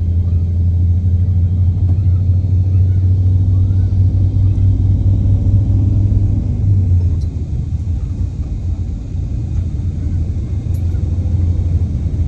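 Low, steady rumble of a bus's engine and road noise heard from inside the cabin while driving, easing off slightly about eight seconds in.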